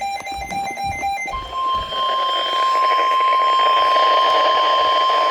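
Emergency Alert System activation over a weather radio: the alert header's rapid, buzzy data tones end about a second in, then the steady single-pitch 1050 Hz warning alarm tone of NOAA Weather Radio sounds over radio hiss, announcing a flash flood warning.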